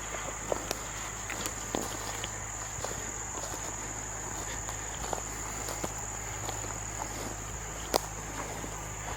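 A steady, high-pitched insect chorus, cricket-like, with scattered crunching footsteps through brush and one sharp snap about eight seconds in.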